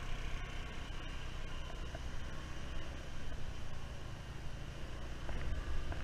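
Boat engine running steadily, a low hum with no change in speed.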